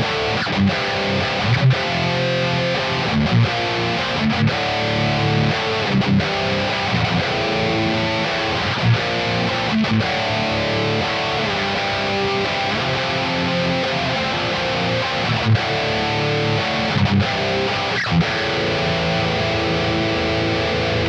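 Jackson JS32 electric guitar played with a distorted tone on its bridge humbucker, one of its Jackson High Output pickups. It plays a continuous passage of picked notes at a steady level.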